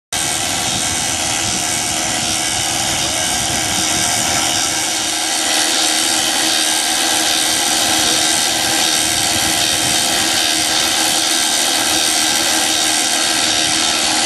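Steady loud rushing, whining noise of a running engine or motor, getting a little louder about five seconds in.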